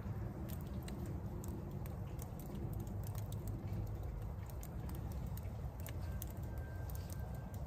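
Outdoor ambience: a steady low rumble with scattered light ticks and taps throughout.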